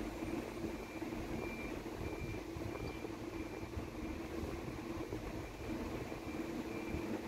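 Steady low electrical hum with a faint, short high-pitched beep repeating about twice a second.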